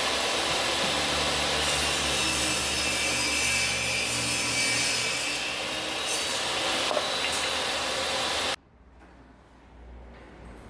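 A saw cutting through wood with a steady rasping noise that cuts off suddenly about eight and a half seconds in.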